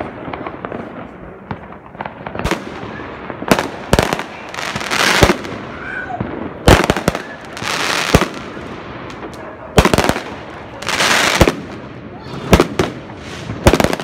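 Fireworks going off: about a dozen sharp bangs at irregular intervals, with stretches of crackle lasting up to about a second between them.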